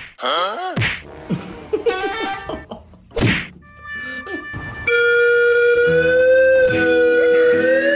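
Added soundtrack: a quick falling pitch sweep and a few short thuds, then background music with a held, gently sliding melody from about five seconds in.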